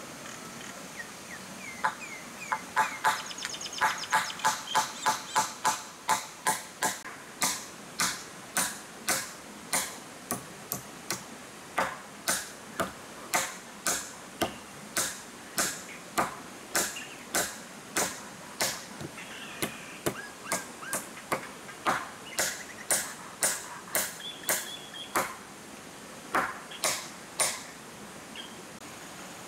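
Hammer blows on a log frame, a long steady run at about two a second with a few short pauses. The first several blows ring.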